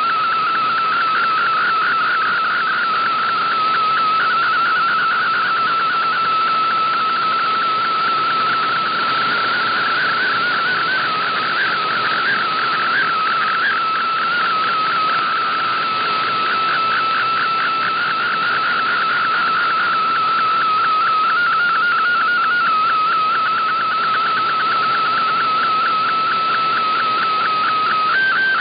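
A shortwave radio receiving an MFSK digital-mode picture transmission: a single warbling tone that jitters rapidly in pitch as the image data is sent, over a steady hiss of band noise. Near the end the tone jumps up in pitch.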